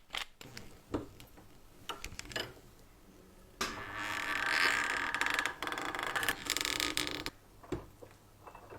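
Metal parts of an old apple peeler being handled, with scattered clicks and taps. From about three and a half seconds in comes a few seconds of steady scraping, grinding mechanical sound, which then stops.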